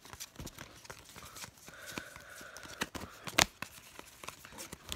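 Football trading cards handled at close range: a run of small clicks and rustles, with one sharper snap about three and a half seconds in.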